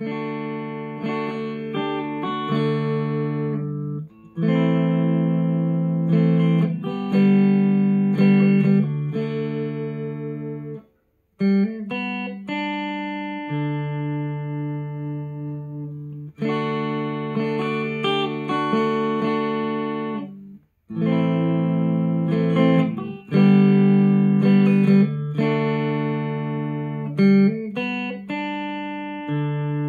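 Clean electric guitar, a Telecaster-style solid body, played through a Sonicake Sonic IR loader pedal loaded with a Tone Junkies impulse response of a Scumback 12-inch speaker. Chords are struck and left ringing, with brief pauses between phrases.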